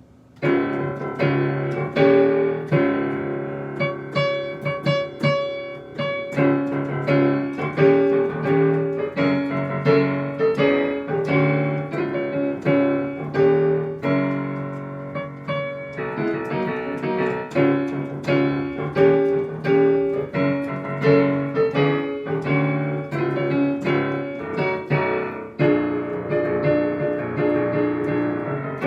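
Digital keyboard playing a piano sound, chords and fills played continuously, with the instrument detuned upward off standard pitch, about a half step and a half sharp.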